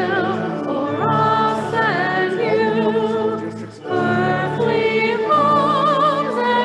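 A hymn being sung, with vibrato on the held notes, over sustained low accompanying notes. There is a brief break between phrases just before the fourth second.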